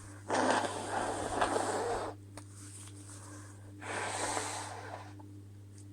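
A woman's hitching breaths: two long, loud breathy gasps or exhales through the nose and mouth, the first lasting nearly two seconds and the second about a second, typical of a sneeze building.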